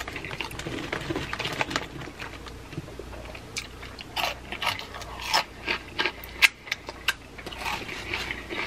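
A handful of Flamin' Hot Cheetos taken from a pile and then crunched and chewed. There are many sharp, separate crunches, which grow louder and more frequent from about four seconds in.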